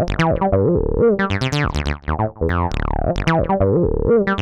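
Electronic background music: a short synthesizer-style phrase with falling sweeps, looping about every two and a half seconds.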